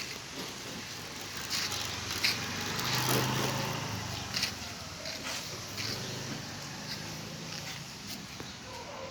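A motor vehicle passing, loudest about three seconds in, with a weaker swell a few seconds later and scattered sharp clicks and knocks.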